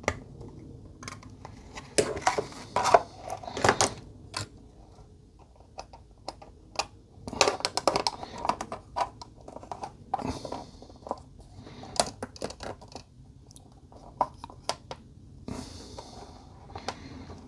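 Irregular clicks, taps and short scrapes of small plastic model-kit parts and hand tools being handled and trimmed on a workbench during clean-up.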